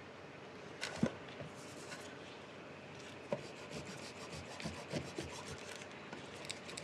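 Dip pen nib scratching across drawing paper in quick, light strokes while inking a manga page, with a few soft taps of the pen. The strokes come thick and fast in the second half.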